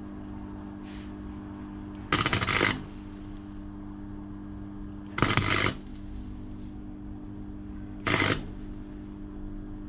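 Arc welding on a car's suspension mount: three short, crackling bursts of welding, the last one shorter, laid down as quick tack welds over a steady electrical hum.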